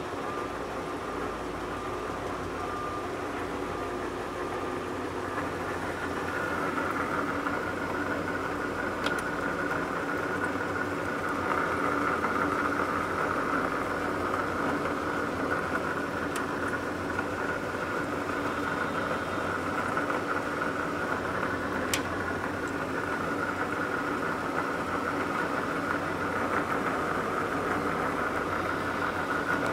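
Supermax G-2238 engine lathe running with no cut: the spindle and headstock gearing make a steady mechanical hum and gear whine. The whine grows louder about a fifth of the way in, and there are a couple of sharp clicks.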